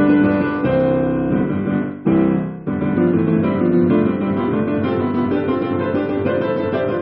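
Digital piano played solo: a couple of held chords in the first three seconds, then a faster, busier run of notes.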